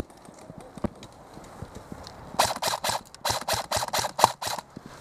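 Airsoft gun firing a quick string of shots, about nine sharp cracks in two runs, starting about two and a half seconds in.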